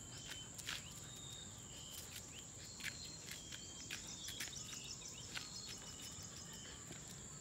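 Outdoor ambience of insects keeping up a steady high trill, with short high bird chirps scattered through it and a few faint clicks.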